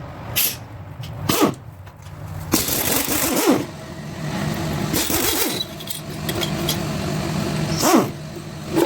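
Impact wrench with a 14mm socket loosening exhaust manifold bolts on a small block Chevy 350, in several short bursts. A steady low motor hum runs underneath.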